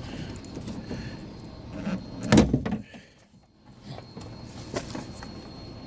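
Handling noises at a car door: scattered clicks and rustling, with one loud knock about two and a half seconds in.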